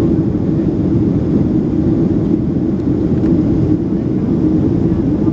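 Boeing 737-800's CFM56 jet engines running with a steady, loud low rumble and a constant hum, without change in level.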